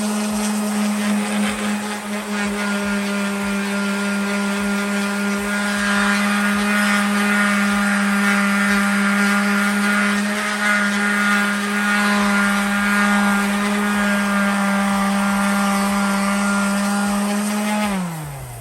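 A power tool's electric motor running with a steady, even whine. Near the end it is switched off and winds down, its pitch falling as it fades.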